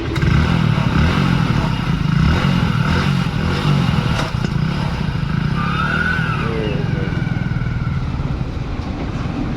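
Motorcycle engine running with a steady low chug, loudest just after it comes in at the start.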